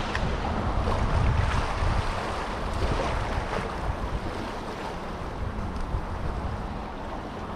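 Wind buffeting the microphone over a steady wash of sea water, the low rumble strongest in the first couple of seconds and then easing off.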